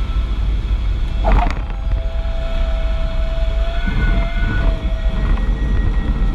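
Cessna light aircraft's engine and airflow rumbling steadily inside the cockpit as it rolls along the runway, with a short bump about a second in. Background music tones sit over the rumble.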